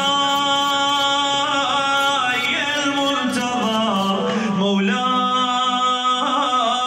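A man singing a devotional song, holding long notes that slide from one pitch to the next.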